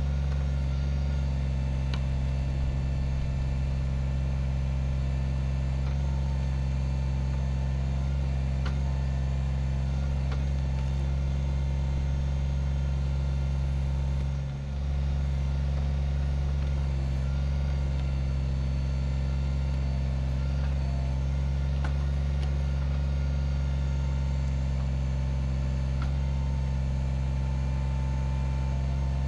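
Kubota BX25D compact tractor's three-cylinder diesel engine running steadily at a constant pitch, with a few faint knocks and a brief dip in level about halfway through.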